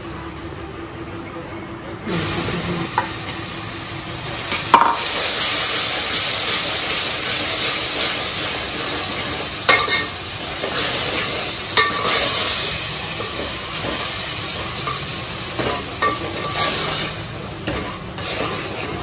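Tomatoes frying in hot oil in an aluminium pot: the sizzling starts abruptly about two seconds in and keeps on steadily. A steel ladle stirs and scrapes the masala, with a few sharp clinks against the pot.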